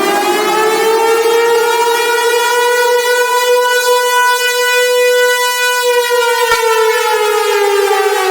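Civil defence warning siren sounding one long wail: the pitch climbs slowly, levels off in the middle, then falls away steadily.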